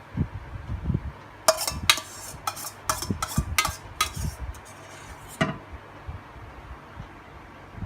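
A metal spoon clinking and scraping against a stainless steel pot. About fifteen sharp clinks come in a quick, uneven run, starting about a second and a half in and stopping after about four seconds. A few dull knocks come before them.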